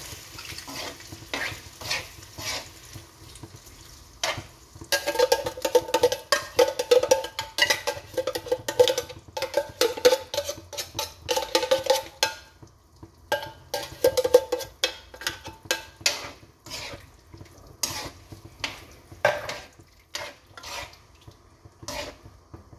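A metal food can being knocked and scraped against a wok and spoon to empty it, making repeated clicks and knocks with a squealing metal-on-metal scrape through the middle stretch. A pan sizzles faintly underneath.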